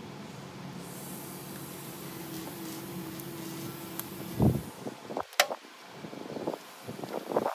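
Ignition coil and its plastic wiring connector on a BMW N52 straight-six being worked by hand: a thump about four and a half seconds in, a sharp click about a second later, then several small clicks and knocks. A steady low hum runs underneath until the thump.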